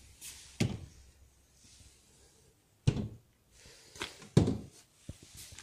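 Tilt-out shoe compartment of a small shoe cabinet being swung open and shut, giving several hollow wooden thunks and knocks, the loudest about three and four and a half seconds in.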